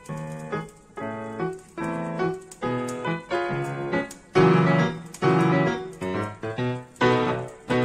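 Background piano music, a melody of quick struck notes.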